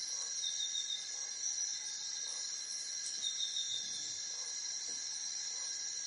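Steady chorus of insects, a continuous high-pitched drone made of several unbroken tones.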